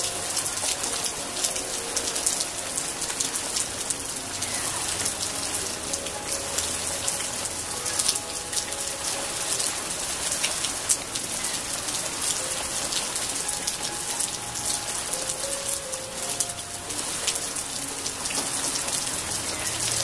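Steady rain falling, with many sharp individual drop hits close by.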